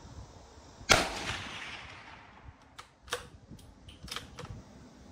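A single rifle shot from a Rossi RB22M .22 WMR firing a CCI 40 grain total metal jacket round, about a second in, its report echoing away over about a second. A few quieter sharp clicks follow a couple of seconds later.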